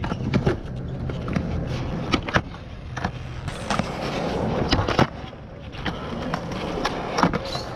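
Skateboard wheels rolling on a smooth concrete skatepark floor, with about ten sharp wooden clacks of the deck popping and landing, the loudest about five seconds in.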